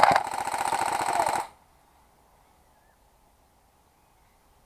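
Airsoft electric gun firing a long full-auto burst, a fast steady rattle of shots that stops abruptly about a second and a half in. Near silence follows.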